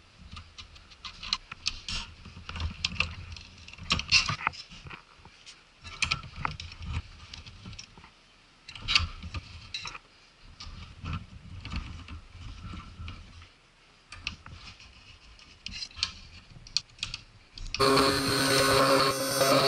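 Irregular clicks, knocks and rubbing from hands handling a Mooz desktop CNC machine's toolhead and chuck, close to the microphone; no spindle is running. Music comes in near the end.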